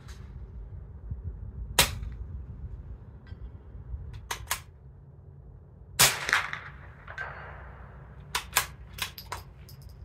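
Suppressed .22 rimfire rifle shots from a CZ 457 fitted with a Dead Air Mask HD suppressor, firing quiet low-velocity CCI Quiet rounds: a handful of short, sharp cracks, the loudest about two seconds in and about six seconds in, with the ting of a steel plate hit downrange. A quick cluster of sharper clicks comes near the end.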